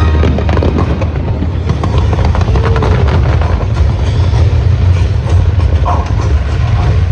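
Fireworks going off: dense crackling and popping over a constant low rumble.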